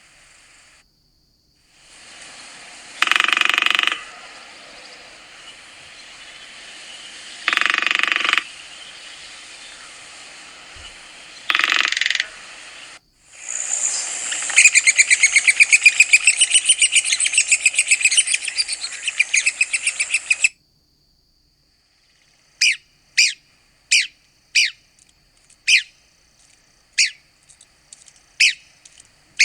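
Red-cockaded woodpecker calls from several recordings in a row. First come three harsh, raspy calls a few seconds apart, then a rapid chattering run of notes lasting about six seconds. After a short gap comes a series of short, sharp single notes, roughly one every half-second to second.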